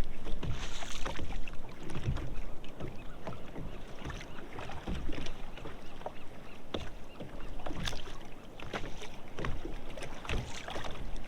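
Knocks, clicks and water sounds around a fishing kayak, with wind rumbling on the microphone, as a hooked small fish is reeled up.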